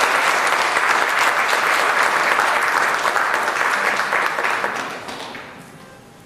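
Audience applauding, dying away over the last second or two.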